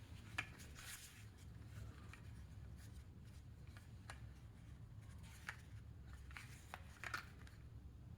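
Toy cars being handled: a few faint, scattered clicks and scrapes over a low steady hum.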